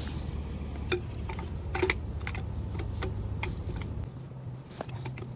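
Light clicks and knocks of plastic pipe fittings and tools being handled, scattered through, over a steady low hum that stops about four seconds in.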